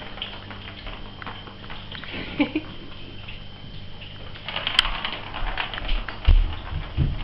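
Ragdoll kitten playing, pawing and scuffling with a hand: scattered soft taps and rustles, a sharp click about five seconds in, and a few low thumps near the end.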